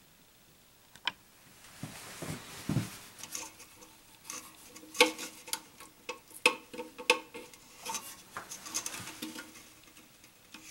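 Hands gripping and twisting a toilet's flush-valve canister inside the tank to unscrew it, with scattered sharp clicks and knocks of plastic parts against each other and the tank, thickest from about five seconds in. The valve is stiff and hard to turn, the sign of corrosion at its base.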